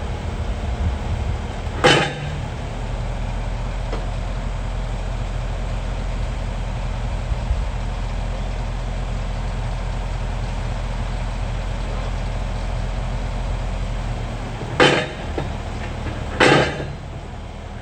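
Excavator diesel engine running steadily, with three loud knocks: one about two seconds in and two close together near the end.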